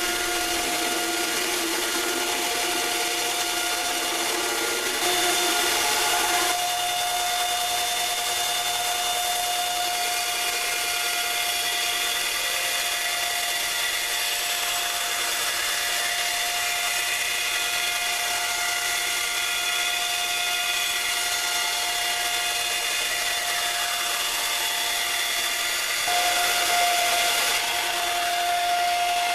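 Belt grinder running steadily while a steel knife blade cut from a chainsaw bar is ground on it: a constant motor whine with a hiss of grinding, louder for a moment about five seconds in and again near the end.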